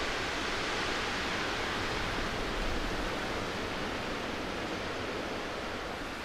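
Steady storm wind: an even hiss, with low rumbling where gusts hit the microphone, strongest about two to three seconds in.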